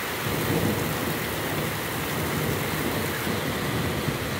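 Heavy tropical downpour: rain falling steadily as a dense, even hiss, with a low rumble underneath.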